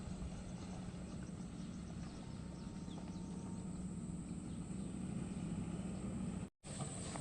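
Diesel engine of a SANY SY75 long-arm excavator running steadily with a low, even hum. The sound cuts out completely for a moment about six and a half seconds in.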